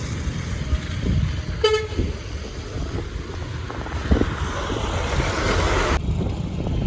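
Wind rumbling on the microphone over traffic noise, with one short vehicle horn toot a little under two seconds in. A rushing noise then grows louder and cuts off suddenly near the end.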